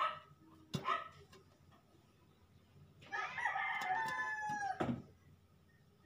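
A rooster crowing once, a long call of nearly two seconds starting about three seconds in and dropping in pitch at the end. A couple of short sharp sounds come just before, near the start.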